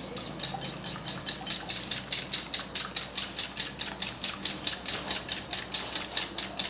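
Wire whisk beating pancake batter in a bowl, clicking against the bowl in a quick, even rhythm of about six strokes a second.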